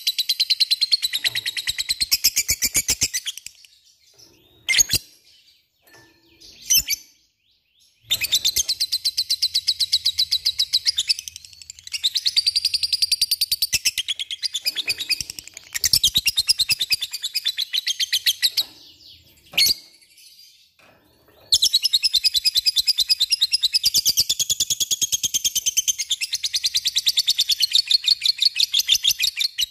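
Lovebird singing in long, very rapid chattering trills (the 'ngekek' song), in bouts of several seconds broken by short pauses with a few single sharp chirps. The longest bout begins about two-thirds of the way through and runs on.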